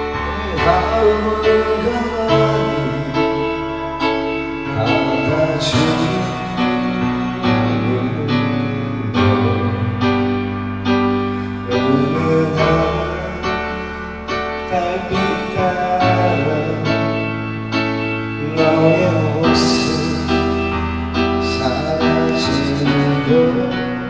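Karaoke backing track playing a song's instrumental intro: band accompaniment with guitar, keys and a steady beat.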